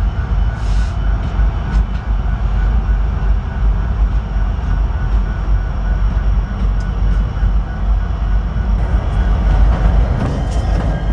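Diesel freight locomotives running by, a steady heavy low rumble with rail noise, turning to sharper rattling near the end.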